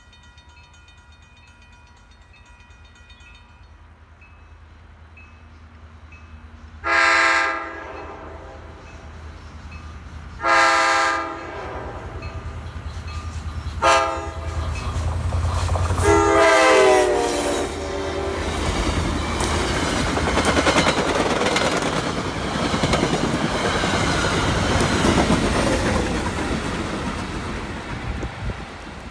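CapeFLYER passenger train's locomotive horn sounds the grade-crossing pattern (two long blasts, one short, one long) as the train approaches. The train then rumbles past with its wheels clacking over the rail joints.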